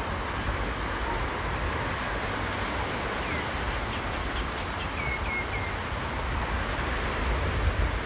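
Steady outdoor street noise on a wet road: an even rushing hiss over a low rumble, with one short high chirp a little before halfway and three quick high chirps just past the middle.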